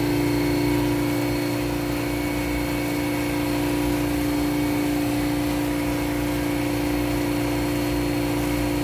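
Carlyle 06D semi-hermetic 3 HP reciprocating refrigeration compressor running steadily, a continuous machine hum with a constant tone. The unit is working properly.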